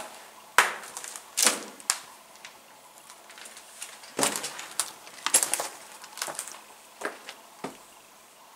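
Footsteps crunching and snapping through dry twigs and undergrowth, with rustling between steps, coming irregularly and dying away near the end.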